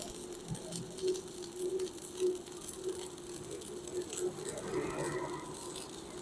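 Stick (MMA) welding arc from a Protech MK250 inverter welder burning a 3.2 mm electrode at about 160 A: a steady crackling sizzle over a constant hum, without surging, the sign of a stable arc.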